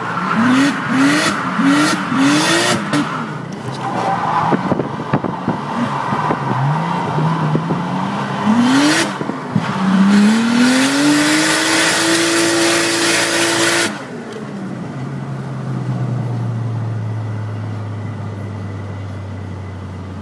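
Toyota Chaser JZX100's straight-six engine heard from inside the cabin while drifting, revved in quick repeated rises at first, with tyre noise. About ten seconds in it revs up and holds high with loud tyre noise, then cuts off suddenly and falls to a low, slowly sinking engine note.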